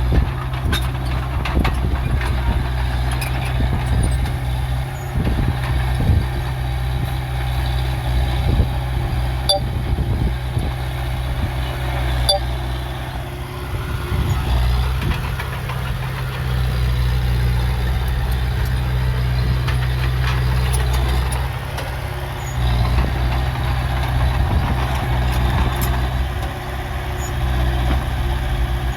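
Diesel engine of heavy earthmoving machinery running under load with a steady low drone that swells and eases slightly, with a few faint clicks and knocks.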